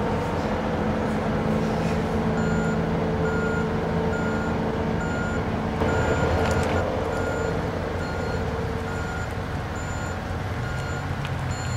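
A heavy truck's engine runs steadily under a vehicle backup alarm. The alarm starts about two seconds in and beeps at one steady pitch, a little faster than once a second.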